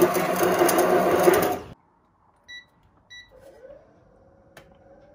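Braun immersion hand blender running steadily in a beaker of pancake batter, cutting off abruptly under two seconds in. Then two short electronic beeps from an induction hob's controls, followed by a faint hum that rises and settles to a steady tone as the hob starts heating the pan.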